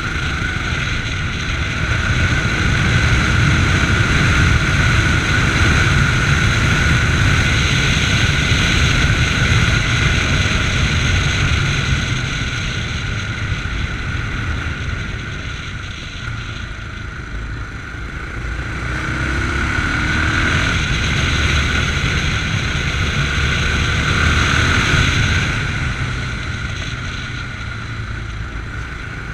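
Yamaha MT-03 motorcycle engine running under way, heard from the rider's chest. It gets louder over the first ten seconds or so, eases off past the middle, picks up again, then drops back near the end as the throttle opens and closes.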